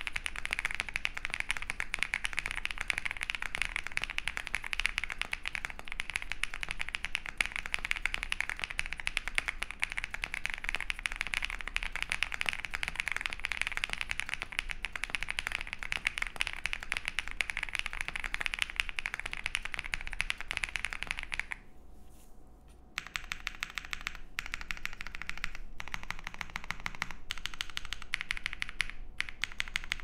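Mr. Suit TKL mechanical keyboard typed on fast, with Holy Boba tactile switches lubed with Tribosys 3203, a polycarbonate plate, full foam and PBT keycaps giving a dense run of muted clacks. About three quarters of the way through the typing stops for a moment, then gives way to slower, separate presses on the bottom-row keys and spacebar.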